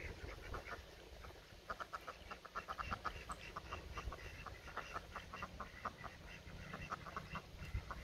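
Domestic ducks quacking in quick runs of short calls, starting about two seconds in and going on to near the end.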